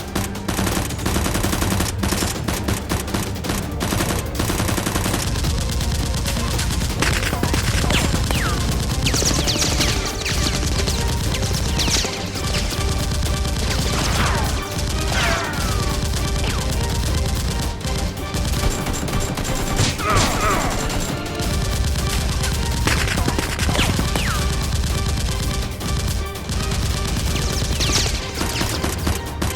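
Edited-in gunfire sound effects: rapid shots in quick bursts, thickest in the first few seconds, over steady background music, with several short falling whistle-like sounds.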